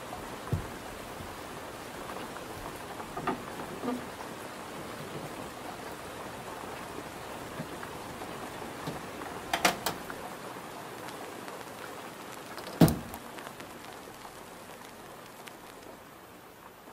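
Steady rain hiss that fades toward the end, with a few light knocks, the sharpest about 13 seconds in.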